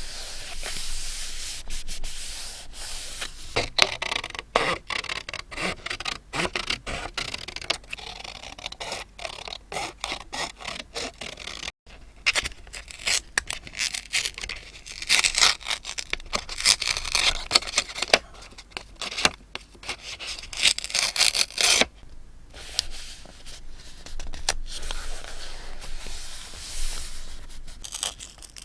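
Paper being handled for scrapbooking: rubbing, scraping and rustling with many small clicks and taps, broken by a brief dropout about twelve seconds in.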